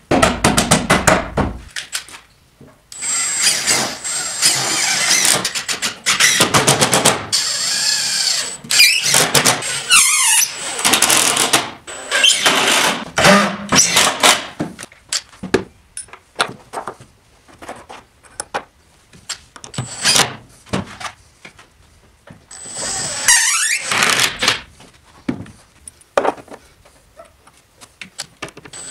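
Cordless Makita driver running in bursts of a few seconds as screws are driven into OSB panels, the first with a steady high whine. Short knocks and clatter in between.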